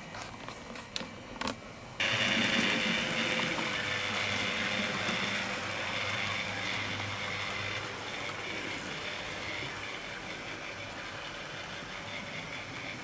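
HO-scale model steam locomotive (Roco class 23, 2-6-2) and its coaches running along the layout track. A few light clicks come first, then a steady rushing, rattling running noise starts abruptly about two seconds in and slowly fades.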